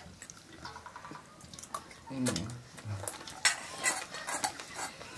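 Metal spoon scraping and clinking against an aluminium bowl while scooping rice and curry, with a few scattered clicks.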